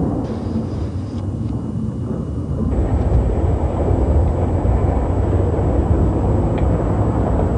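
Skateboard wheels rolling on pavement, a steady low rumble picked up by a camcorder microphone. About three seconds in it changes abruptly to a heavier rumble as the board is pushed along a smooth plaza floor.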